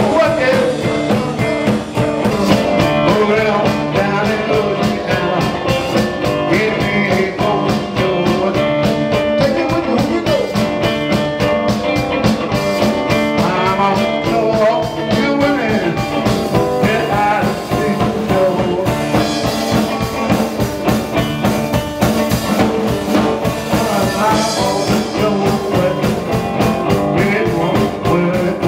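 Live electric blues band: electric guitar played over a drum kit's steady beat.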